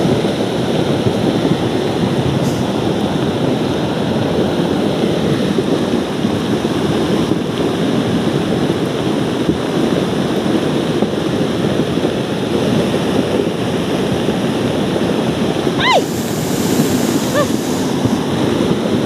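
Heavy rain pouring, with rainwater running over the ground: a dense, steady hiss. About sixteen seconds in, a brief high squeal falls sharply in pitch, and two shorter faint tones follow.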